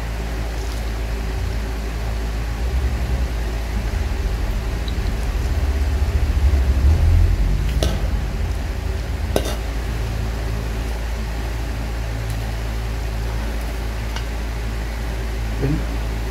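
Dried fish in oil sliding out of a stainless steel bowl onto a plate, over a steady low hum in the room, with two light clinks of the bowl against the plate about halfway through.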